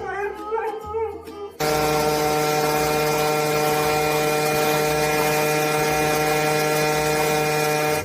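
Wavering pitched sound for the first second and a half, then a loud, steady machine hum with a hiss over it that starts suddenly and cuts off suddenly.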